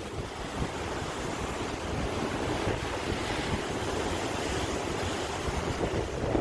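Sea waves washing on a shore, a steady surf rushing that swells and eases, with wind buffeting the microphone.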